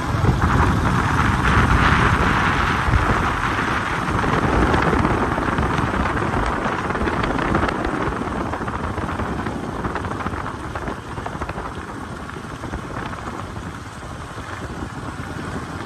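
Wind rumbling and buffeting on the microphone of a moving motorbike, with the road and engine noise of the ride underneath; loudest in the first half, easing off towards the end.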